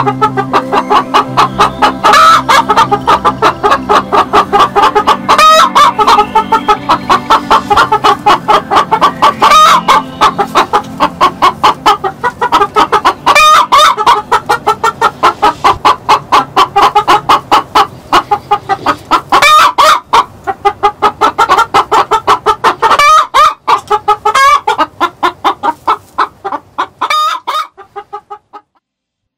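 Hen cackling loudly: a long run of rapid clucks, several a second, broken every few seconds by a louder drawn-out squawk. This is the egg song a hen gives just after laying. It fades out near the end.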